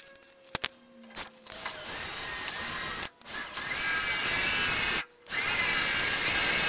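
Electric drill with a small 1/8-inch bit drilling through a metal suspension tube. After a couple of clicks at the start, the motor runs in three stretches, with two short stops between them.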